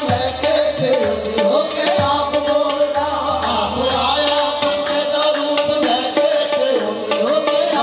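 Qawwali music: a harmonium playing a melody over a held note, with tabla strokes keeping a steady beat.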